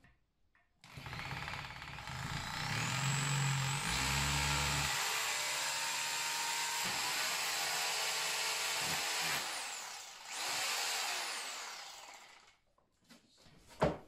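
Corded DeWalt power drill boring into a crumbly plaster wall. A long run of about eight seconds, its motor whine rising as it speeds up and winding down at the end, is followed by a second shorter burst that spins up and slows again. A sharp knock comes near the end.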